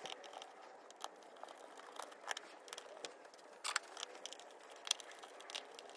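Faint, scattered small metallic clicks and taps as Torx screws are handled and set by hand into the plastic air filter housing lid, with a couple of sharper clicks around the middle.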